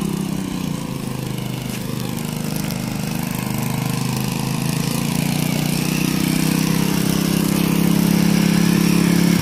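Small engine-driven water pump running steadily, drawing rainwater out of a flooded foundation pit; its drone grows gradually louder.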